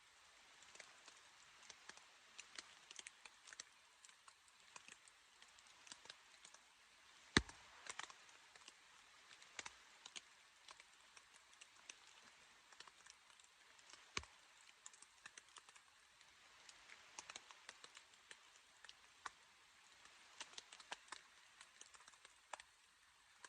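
Faint rain dripping and pattering on a tent's fabric: scattered light taps over a soft hiss, with two louder knocks about seven and fourteen seconds in.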